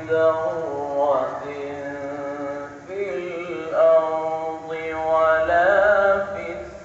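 A man's voice reciting the Quran in a melodic tilawat style, holding long ornamented notes that glide up and down in pitch across several phrases.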